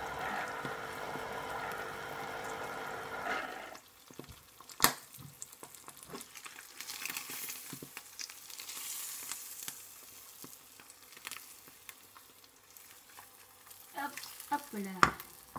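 Electric citrus juicer's motor running steadily while an orange half is pressed onto its cone, then stopping a little under four seconds in. After a sharp click, a frying egg sizzles faintly in a nonstick pan, and near the end there is a clatter of knocks as the pan is tossed to turn the egg.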